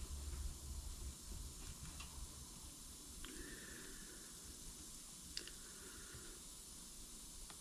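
Faint clicks, three times, the last two each followed by about a second of soft hiss, as a hot soldering iron is pressed into plastic.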